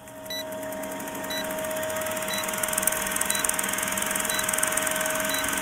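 Old-film countdown leader sound effect: a film projector's fast steady clatter over hiss and a low hum, fading up over the first two seconds, with a short high beep once a second as each number ticks down.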